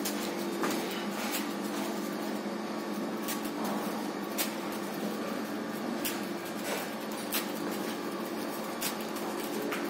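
Indoor room tone: a steady hum, with a few light clicks and knocks scattered through it.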